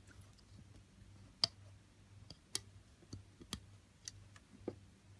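Scattered light clicks and taps of silicone loom bands being stretched and snapped over the pegs of a plastic bracelet loom, several in irregular succession, the sharpest about a second and a half in, over a faint low hum.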